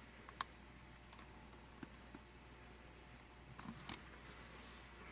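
Handling noise from the camcorder being turned over in the hands: one sharp click about half a second in, then a few faint clicks and taps toward the end.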